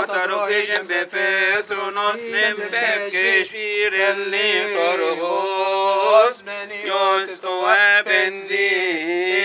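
Men's voices chanting a Coptic Orthodox liturgical hymn, the melody drawn out in long, ornamented notes, with one long wavering note held in the middle.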